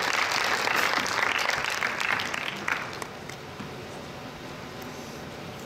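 Audience applauding in a lecture hall, the clapping dying away about three seconds in.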